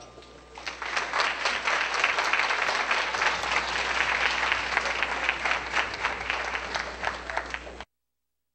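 Audience applauding, the clapping rising to full strength about half a second in, just after the band's last note dies away, and cut off suddenly near the end.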